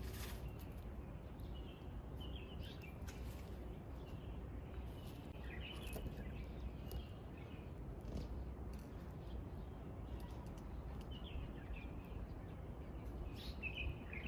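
Outdoor ambience: small birds chirping in short clusters every few seconds over a low, steady background rumble.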